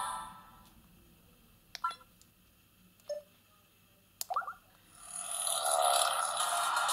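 A Samsung SGH-Z130 ringtone fades out, then a few short clicks and beeps sound from the phone's keypad as the next ringtone is chosen. About five seconds in, the next ringtone begins quietly and rises in volume.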